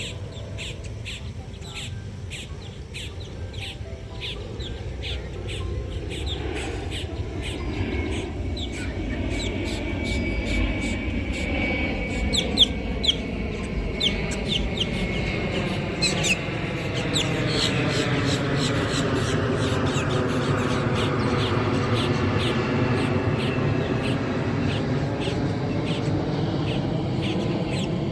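Small birds chirping rapidly and repeatedly, over a low rumble that grows louder from about six seconds in and then holds steady.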